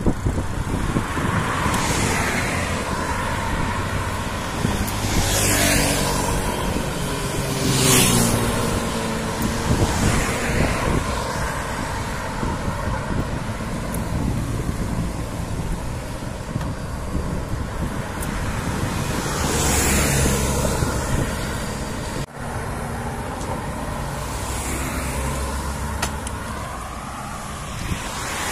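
City road traffic: cars passing one after another, about six times, over a steady low rumble.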